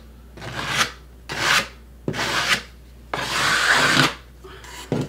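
Hand scraper scraping old caulk off a kitchen countertop in four short strokes, the last one longest, then a fainter fifth stroke near the end.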